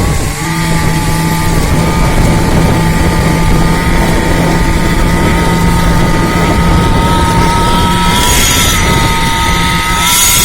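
Construction machinery with an engine running steadily: a loud low hum with a constant high whine over it, and a short hiss about eight seconds in and again near the end.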